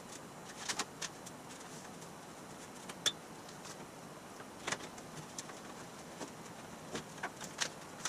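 Blue painter's tape being pulled off its roll and pressed along the edge of an aluminum cowl: scattered short crackles and ticks, with one sharper click about three seconds in.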